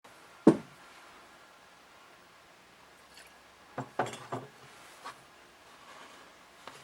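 Small hard objects being handled and set down on a work surface: one sharp knock about half a second in, then a quick run of lighter knocks and taps around four seconds in, and a single tap a second later.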